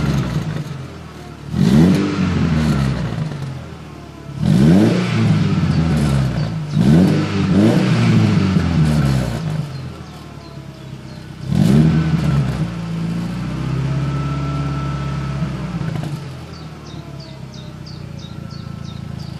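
Volkswagen Golf IV 2.0-litre four-cylinder petrol engine revved through an aftermarket Supersport sport exhaust. About six quick throttle blips, each rising and falling in pitch, then the revs are held a little higher for about three seconds before dropping back to a steady idle.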